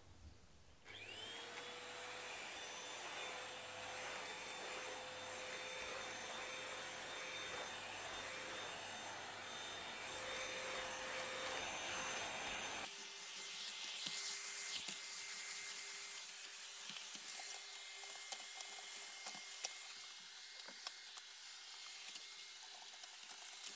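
Cordless stick vacuum cleaner switched on, its motor whine rising and settling to a steady pitch. About halfway through, the sound changes abruptly to a slightly different steady whine, with small clicks and rubbing as the nozzle moves over the floor.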